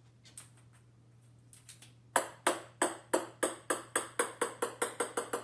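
A small ball bouncing on a wooden floor: the first hard bounce comes about two seconds in, then the bounces come ever quicker and quieter, each a sharp ringing click.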